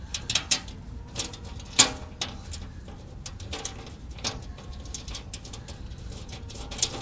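Small, irregular metallic clicks and taps as a bolt and nut are handled and fitted by hand through a metal under panel, with one sharper click a little under two seconds in.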